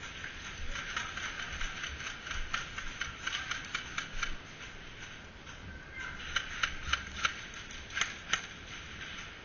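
Irregular sharp clicks and taps, a few a second, in two spells, with a handful of louder strikes near the end.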